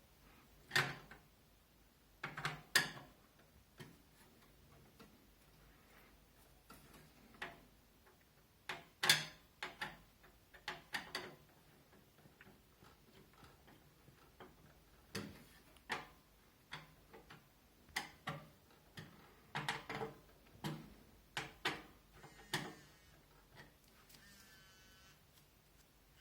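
Irregular clicks and knocks of a screwdriver and screws being tightened into a fan's plastic frame inside a metal PC case, some in quick clusters. A short squeak near the end.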